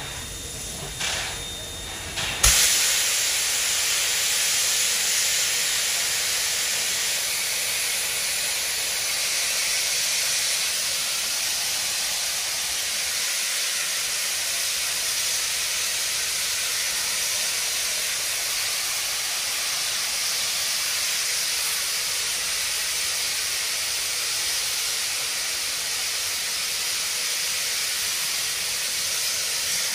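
NSWGR 59 class steam locomotive 5917 blowing off steam: after a couple of short puffs, a loud, steady hiss starts suddenly about two and a half seconds in and holds, as the safety valves lift with the boiler at full pressure.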